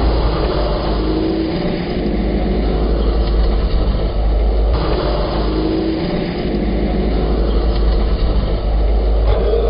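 Snowmobile engine running as the sled drives off across the snow-covered ice and circles back, under a steady low rumble.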